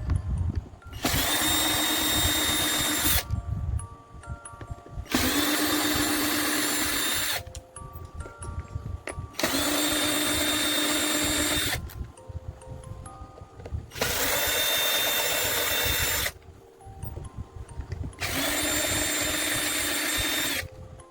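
A power drill running in five bursts of about two seconds each, its motor pitch sagging as each burst stops. Background music with stepped notes fills the gaps.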